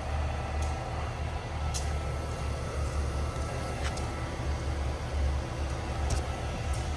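Peterbilt 389 semi truck's diesel engine idling: a steady low rumble with a few faint ticks.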